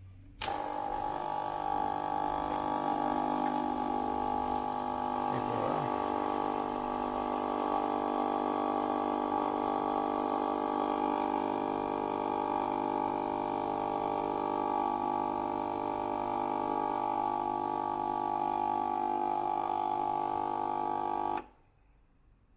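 Gaggia Viva Deluxe espresso machine's vibratory pump running steadily while priming the machine, pushing water through from the tank. The hum starts sharply about half a second in and cuts off suddenly near the end.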